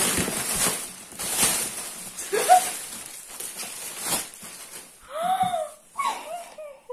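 Clear plastic air-cushion packing pillows crinkling and rustling as they are pulled out of a cardboard box. About five seconds in, a girl gives one short excited vocal sound that rises and falls in pitch.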